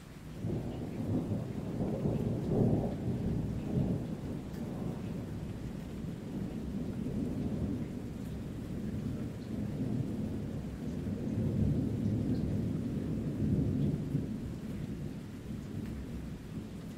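Thunder rumbling low and rolling, breaking in about half a second in, swelling again past the middle and easing off near the end, over a light steady rain.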